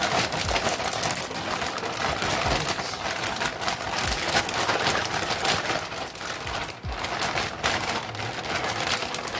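Plastic bag crinkling and rustling as raw chicken wings in lime and lemon juice are shaken and worked around inside it. A few dull thumps come through the crinkling.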